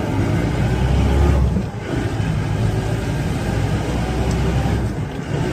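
Mahindra Major jeep's engine pulling under hard acceleration. The engine sound drops briefly about a second and a half in, then picks up again and runs on steadily.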